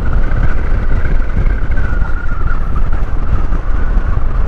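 Motorcycle riding at a steady road speed, heard from the rider: a steady engine drone under a heavy rumble of wind on the microphone.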